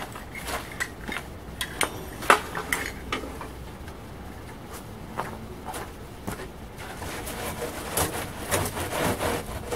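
Scattered metal clanks and clinks of tools and metal pieces being handled, the loudest a sharp knock about two seconds in, with a busier run of knocks near the end.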